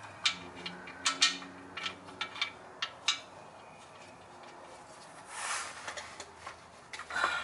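Sharp, irregular metallic clicks and taps as the differential fill plug is handled and threaded back in by hand, about a dozen in the first three seconds. A short rustle follows about halfway through and again near the end.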